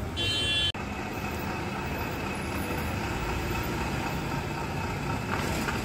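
Street traffic: vehicle engines running and passing in a steady low rumble, with a brief high beep in the first second.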